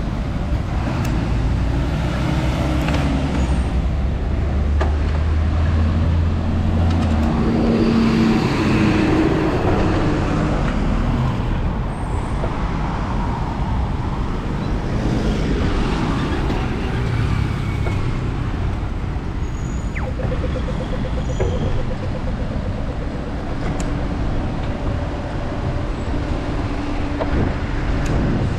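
Road traffic on a city street, cars and heavier vehicles passing, with a deep engine hum close by for the first several seconds that stops abruptly. A brief fast ticking comes about two-thirds of the way through.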